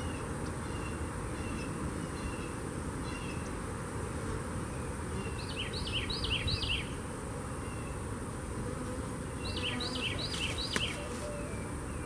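Honeybees buzzing around an open hive, a steady hum, with a songbird chirping over it and twice breaking into a quick run of falling notes, about halfway and near the end.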